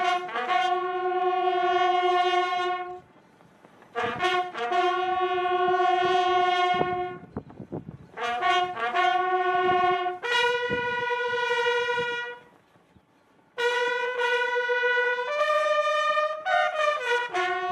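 Military bugle call at a memorial salute: long held notes in four phrases with short pauses between them, the last phrase moving through quicker notes near the end.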